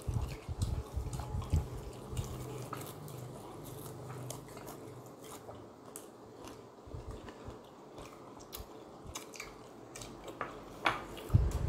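Close-up mouth sounds of a person chewing and biting food, with small wet clicks; the chewing is busiest in the first second or so and again near the end, and quieter in between.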